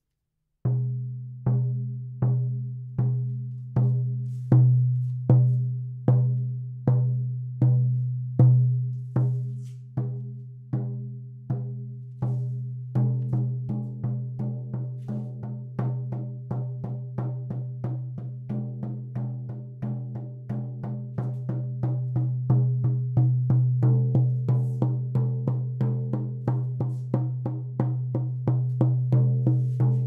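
16-inch calfskin shaman frame drum struck with a padded beater, each stroke a low, ringing boom. Slow, even beats for the first half, then a quicker steady beat of about three strokes a second.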